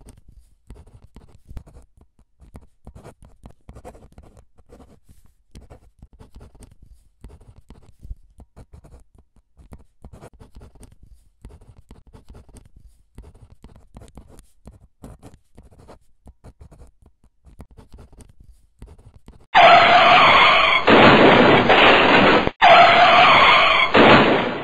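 Faint, scattered scratching of a pen on paper. About five seconds before the end comes a loud, rough scrubbing scrape in three long strokes with short breaks between them, as the drawing is scribbled over.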